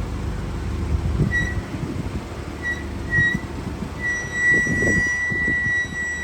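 High-pitched squeal from the car's front disc brakes. It comes in short bursts about a second in and holds steady from about four seconds in, over low road rumble. The pads and discs are about four months old and still squeal.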